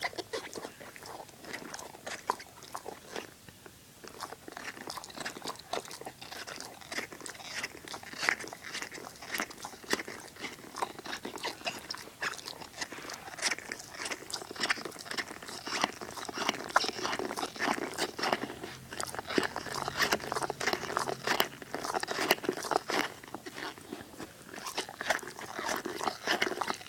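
A dog chewing on a toy ball: a steady run of crunches and bites, busier in the second half.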